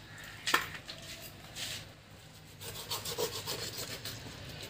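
A knife sawing and rasping through the flesh inside the opened belly of a large blackspotted croaker as the swim bladder is cut out. There is one sharp click about half a second in, and quick rasping strokes from a little past halfway.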